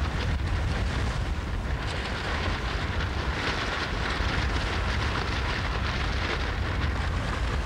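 Wind buffeting the microphone, a steady low rumble under a hiss of wind and choppy water. The hiss grows a little stronger about three seconds in.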